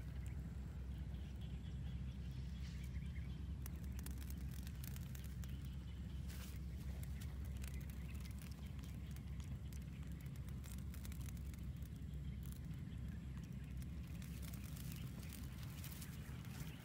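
Outdoor ambience in an open field: a steady low rumble on the microphone, with scattered light clicks and rustles close by, one sharper click about six and a half seconds in.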